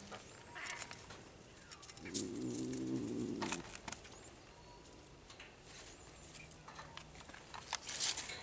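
A caged serval-type cat gives one low, drawn-out call about two seconds in, lasting about a second and a half. Scattered sharp clicks and rattles come around it, with a short rush of high noise near the end.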